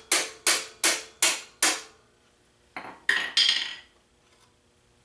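Hammer tapping the rear axle out of a Honda CT70's wheel hub: five sharp, ringing metal-on-metal taps, about two and a half a second, then a brief clatter about three seconds in.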